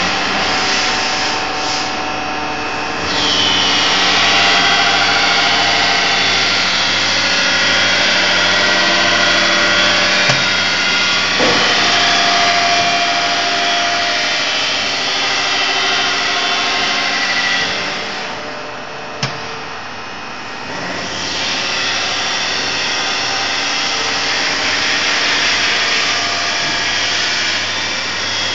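High-speed face mill on a Bragonzi T130 CNC boring mill taking a 2 mm-deep facing cut across a 120 mm-wide band at 850 rpm, a loud steady cutting noise full of ringing tones. The noise drops away briefly near the start and again for a few seconds about two-thirds through, with a sharp click in the second dip, then picks back up.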